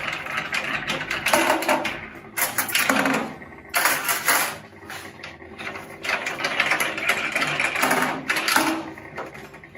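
Lid of a Smokaroma pressure smoker being loosened after cooking: metal-on-metal scraping and rattling from its lid mechanism in a series of bursts a second or two long.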